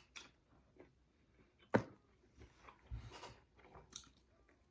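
Close-up eating sounds: soft chewing and mouth noises on chicken wings, with scattered clicks and one sharp click a little under two seconds in.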